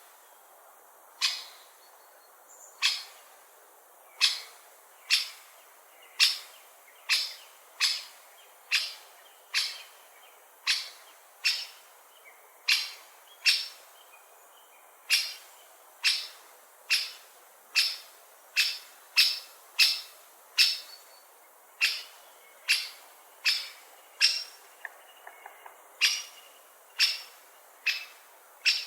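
Great spotted woodpecker calling: sharp, single 'kik' notes repeated about once a second, sometimes a little faster.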